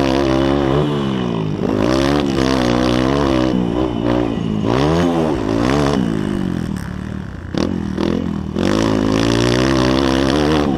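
Motocross bike engine heard from onboard, revving hard and backing off over and over as the rider races, its pitch climbing and falling with the throttle. About seven seconds in the throttle is shut and the engine quietens for a second or so, then it pulls hard again.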